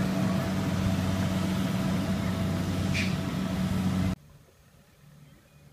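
Kubota combine harvester running steadily in the field, a low engine hum with a hiss of machinery over it. A short high-pitched chirp sounds about three seconds in, and the whole sound cuts off suddenly about four seconds in.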